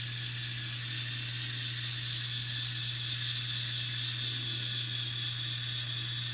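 Lego Technic gear train of about 200 gears and 11 differentials running steadily, driven by a Power Functions medium motor: a smooth, even whir with a steady low hum beneath it.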